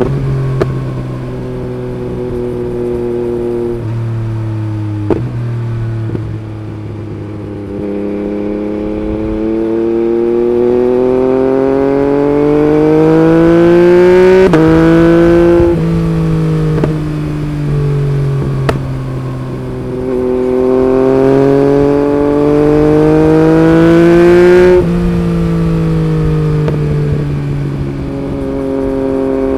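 Yamaha MT-09's three-cylinder engine through an Akrapovic Racing Line carbon exhaust, pulling hard twice with the pitch climbing for several seconds. Each pull ends in a quick clipped gear change from the quickshifter, followed by a sharp step in pitch. A few shorter shifts come near the start, and the revs ease off and fall near the end.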